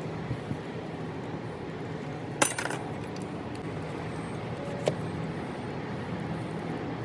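A sharp metallic clink that rings briefly about two and a half seconds in, and a lighter click near five seconds, over a steady low hum: small metal motor parts being handled and set down.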